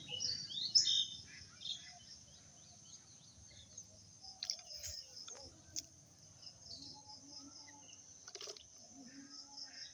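Birds chirping, loudest in the first second, then fainter, over a steady rapid high-pitched pulsing in the background with a few scattered clicks.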